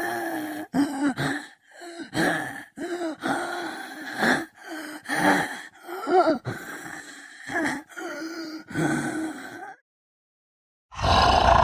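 Zombie moaning sound effect: a voice making a run of short, strained moans, gasps and groans, one after another. They break off about ten seconds in, and a louder, rougher growl starts near the end.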